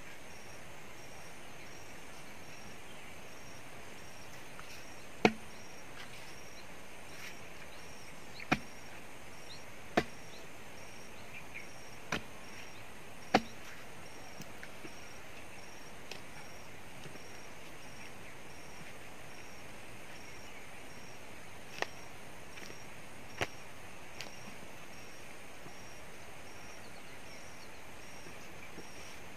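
Chopping blows of a hand tool striking a tree stump while it is cleared from a field: seven sharp, irregularly spaced strikes, five close together and then two more after a pause.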